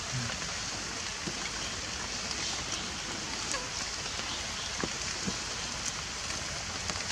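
Steady rain falling, an even hiss with a few faint scattered ticks of drops.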